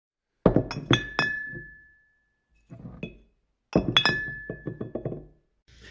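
Glass clinking: two quick runs of sharp clinks, one about half a second in and one near four seconds, a few strikes each, some leaving a clear ringing tone that fades over about a second, with a few faint clinks between them.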